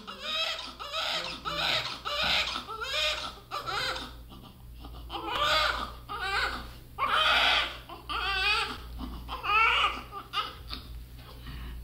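Newborn baby crying: short repeated wails about twice a second at first, then after a brief pause longer, wavering cries, dying down near the end.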